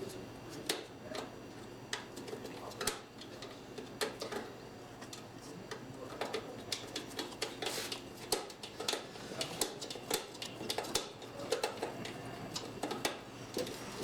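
Irregular small clicks, ticks and metallic scrapes of screws being fastened and parts handled in a desktop computer case.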